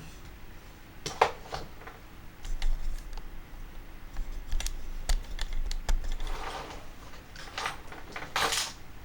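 Hands working on a radio-controlled car's drivetrain parts, giving irregular light clicks and a few short scrapes.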